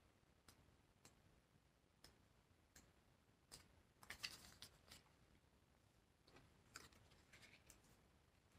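Near silence with faint scattered clicks and rustles of paper pages as a small paperback guidebook is leafed through, with a short flurry of riffled pages about four seconds in and another just before the end.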